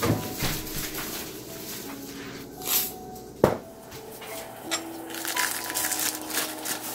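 Soft background music playing a simple melody over kitchen handling noises: a sharp knock about halfway through, then a run of rustling, scraping clicks as a spoon digs seasoning powder out of a plastic-lined jar.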